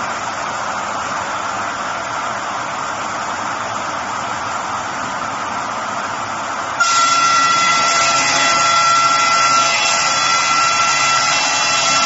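Electric-driven circular saw with a 900 mm blade running with a steady whir. About seven seconds in, the sound suddenly gets louder and takes on several steady high ringing whines.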